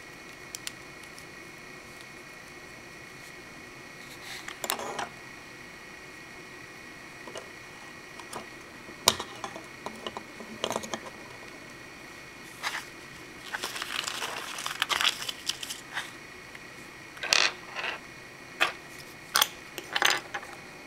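Hard plastic Lego Bionicle pieces clicking and clacking as they are handled and snapped together, in scattered sharp clicks with a denser spell of clatter and rustling about two-thirds of the way through. A faint steady high-pitched hum runs underneath.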